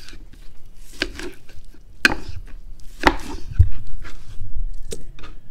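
Knife cutting raw goat meat on a wooden cutting board, the blade knocking on the board four times, roughly a second apart, with a dull thud between the third and fourth knocks.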